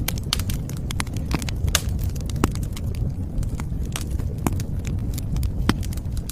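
Wood fire burning and crackling: frequent sharp, irregular pops and snaps of burning wood over a steady low rumble of flame.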